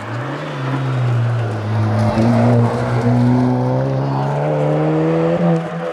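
Suzuki Swift Sport 1.4 rally car's engine pulling hard under full throttle, its pitch climbing steadily through one gear and dropping at a gear change at the very end.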